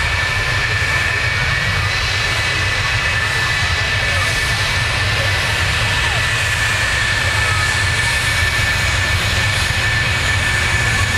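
McDonnell Douglas F-4 Phantom II's twin J79 turbojets at taxi power: a steady high-pitched whine of several tones over a low rumble.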